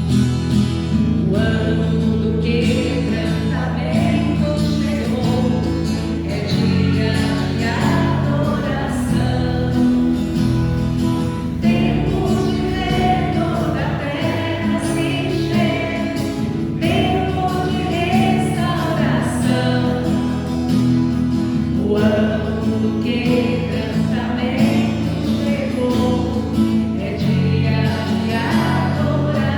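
Congregational worship singing with instrumental accompaniment, a steady beat-free flow of voices and instruments.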